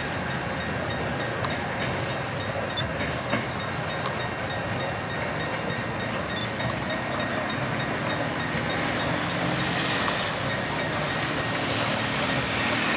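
Container freight wagons rolling past on the rails, a steady rumble and clatter of wheels, with a faint high ticking repeating about four times a second.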